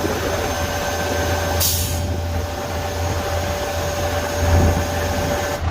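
Concrete boom pump truck running steadily, a constant low engine hum with a steady whine over it. About a second and a half in comes a short hiss, like an air release.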